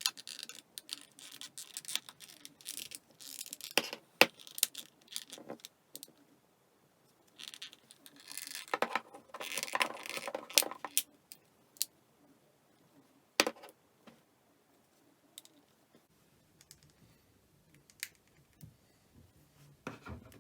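Plastic housing of a flip phone being handled and pressed back into place: runs of small clicks, rattles and scrapes, with sharp single clicks about four seconds in and again around thirteen seconds, and quiet stretches between.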